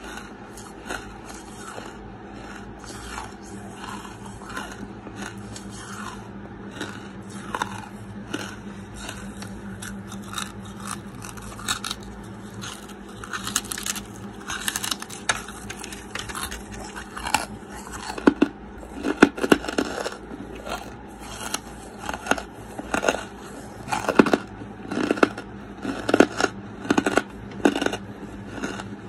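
Lumps of wood charcoal being bitten and chewed: dry crunching and crackling with many sharp clicks. The crunches grow louder and come more often from about 18 seconds in.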